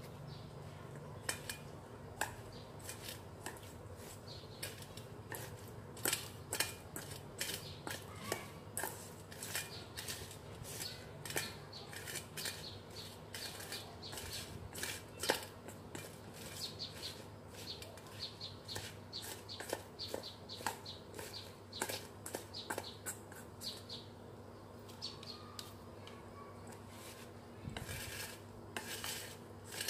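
Wooden chopsticks clinking and scraping against a stainless steel bowl as they stir sliced figs with lemongrass, chili, sugar and salt, in quick irregular taps of a few a second.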